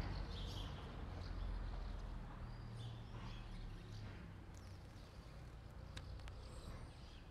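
Faint outdoor background: a low steady rumble with a few faint high chirps and thin clicks.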